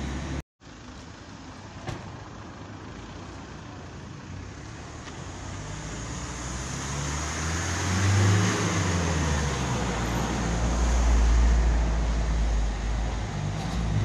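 Road traffic: a motor vehicle's engine and tyre noise builds up from about halfway through as it comes close, with a deep engine rumble at its loudest near the end, then eases slightly.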